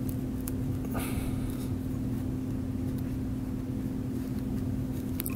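Steady low electrical hum with room noise. About a second in comes a brief soft rustle of the absorbent pad being handled as the needle is passed through it, and near the end a couple of faint clicks.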